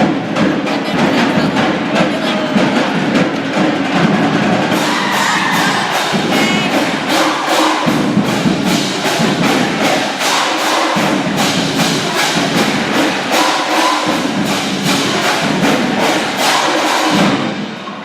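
High school marching band playing loudly, with percussion beating out a steady rhythm of sharp hits from about five seconds in. The music cuts off just before the end.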